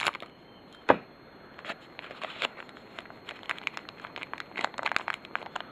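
Foil wrapper of a Topps 2008 Series 2 baseball card pack crinkling and crackling in the hands as it is opened: one sharp click about a second in, then many quick small crackles.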